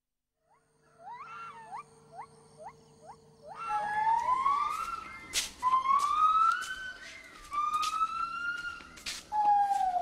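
Animal calls: a run of short rising notes, then several long rising calls of about a second and a half each, the last one falling away.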